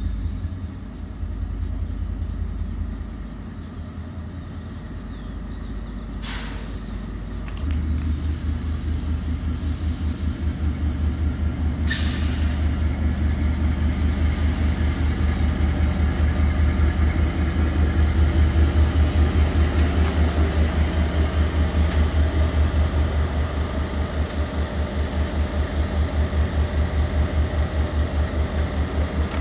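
Diesel locomotive of an approaching freight train, its engine a deep pulsing rumble that gets louder from about eight seconds in. Two short hisses come about six and twelve seconds in.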